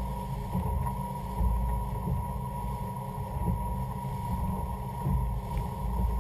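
Wind buffeting a boat-mounted GoPro's microphone as the boat moves, a heavy low rumble with a steady high tone running under it. It starts and stops abruptly at clip edits.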